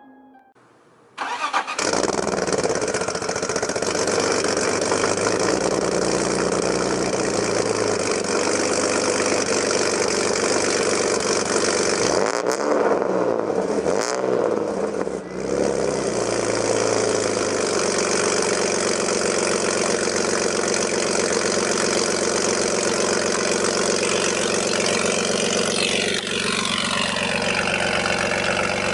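BMW E46 engine starting about a second in and then running steadily, heard at the exhaust. It is revved briefly in the middle and again near the end, the pitch rising and falling back.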